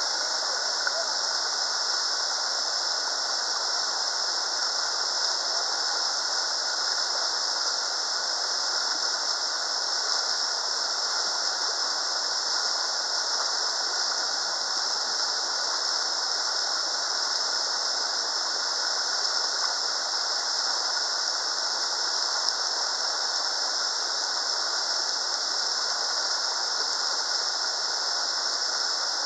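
Whitewater river rapids rushing over boulders: a steady, unbroken hiss of fast water.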